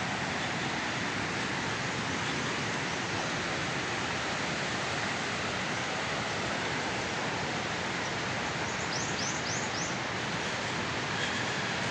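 Steady rush of the shallow, fast Kunhar River flowing over stones. A few short high chirps come about nine seconds in.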